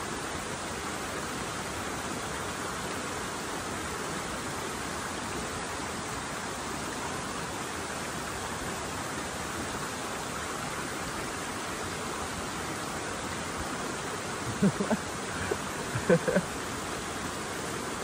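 Steady rush of waterfall water pouring over a rock ledge close by. Near the end a few short vocal sounds from a person break in.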